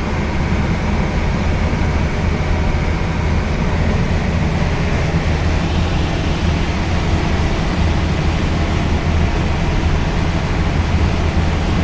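1989 Land Rover Defender's 19J 2.5-litre four-cylinder diesel running steadily under way, with drivetrain and road noise and a strong low drone, then stopping abruptly near the end.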